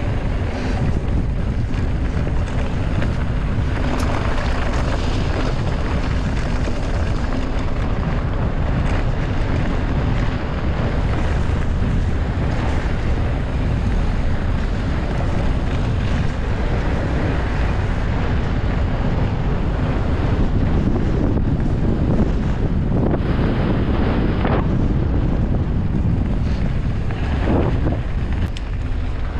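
Wind buffeting the microphone of a camera riding along on a mountain bike: a steady low rumble, with a few brief knocks.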